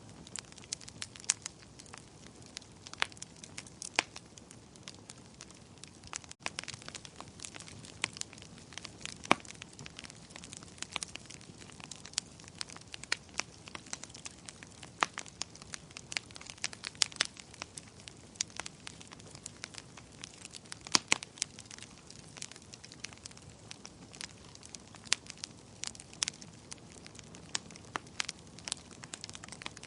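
Fire crackling: irregular sharp pops and snaps, several a second, over a soft steady hiss.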